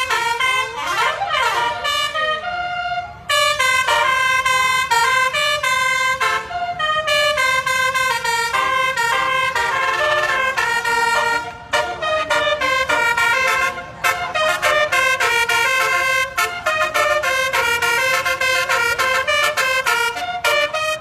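Basuri telolet bus horn, a multi-note horn, playing a melody. It opens with sweeping, siren-like glides, then runs through a long series of stepped notes with a few short breaks.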